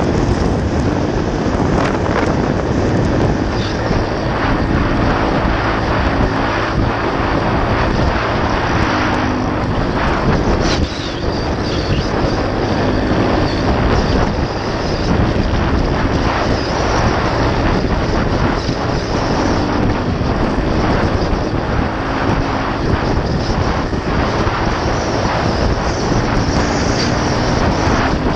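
Dirt bike engine running at speed, its pitch shifting a little with the throttle and dropping off briefly about eleven seconds in, under heavy wind noise on the helmet or bike camera's microphone.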